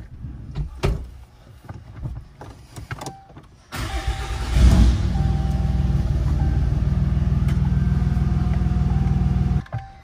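Ram 3500's diesel engine started up: it catches with a brief surge, then idles steadily with a rapid even pulse before cutting off suddenly near the end. A few light clicks of handling come before it.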